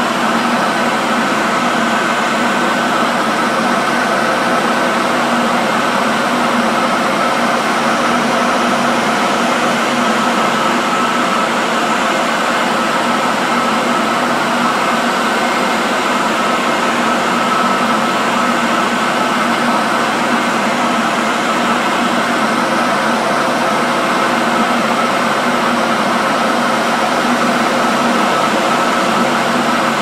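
Electric hand dryer running continuously: a steady rush of blown air with a constant motor whine.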